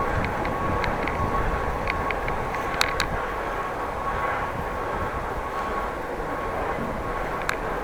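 Wind and road noise from a bicycle riding at speed, with a steady high whine and a few sharp clicks, several in the first three seconds and one more near the end.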